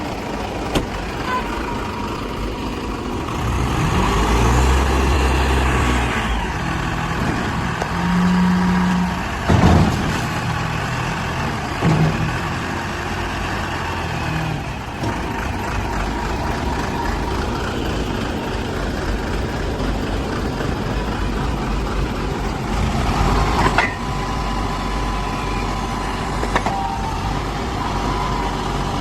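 Backhoe loader's diesel engine running, swelling louder a few times for a couple of seconds as it works the hydraulics, with a few sharp clunks.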